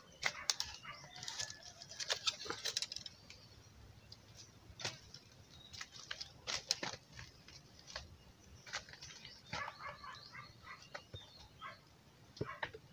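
Irregular light knocks, clicks and rustles from bamboo tubes being handled and set down on dry leaf litter, with birds chirping.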